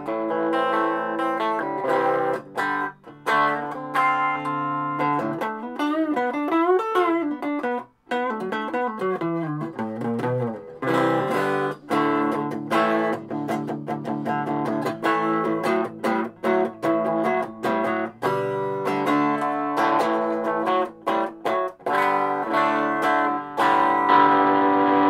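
Electric guitar, a Telecaster-style guitar on its middle pickup, played through a Donner 5-watt mini practice amp on its clean channel: chords and single-note lines, with wavering bent notes about a third of the way in and a chord left ringing near the end.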